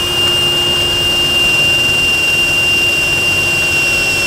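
A steady machine whine over a loud rushing noise, holding one pitch throughout.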